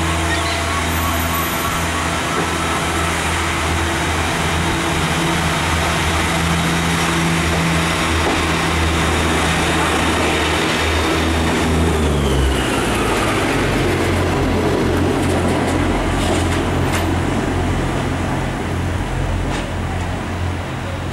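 First Great Western diesel multiple unit moving through the station with its underfloor diesel engine running steadily. The engine note drops in pitch about twelve seconds in, and a lower hum and rumble follow.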